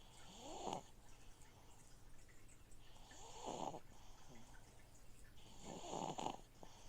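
Slow, rhythmic snoring: three snores about three seconds apart, each a short rasp that rises in pitch, over the steady low hum of an aquarium filter.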